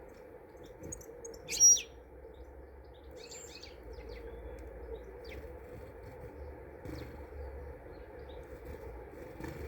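Small garden birds calling: one sharp, loud chirp about a second and a half in, then a quick cluster of chirps a couple of seconds later and a few faint ones after, over a steady low background hiss.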